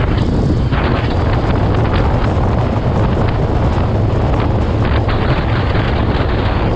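Heavy wind noise on the microphone over a steady low engine hum from a moving road vehicle.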